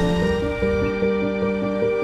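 Background music: an instrumental melody of short, evenly paced notes, over a low rumble that fades out about half a second in.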